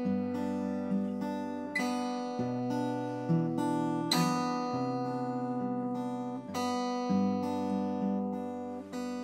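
Acoustic guitar playing a slow chord progression, each chord plucked or lightly strummed about once a second and left to ring.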